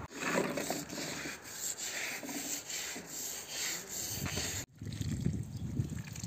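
Wet carpet being scrubbed by hand against concrete: a repeated rubbing and scraping. About three-quarters through it breaks off for an instant and goes on lower.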